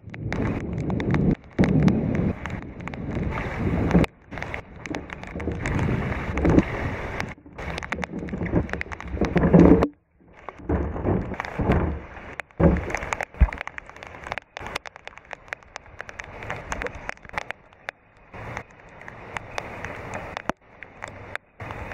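Rain falling on the upturned camera and its microphone: an uneven patter of drops with sharp ticks, cutting out briefly several times.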